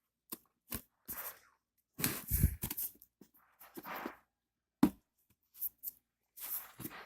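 Packaging being handled and opened: short, separate bursts of rustling, scraping and tearing, with a sharp click near five seconds in.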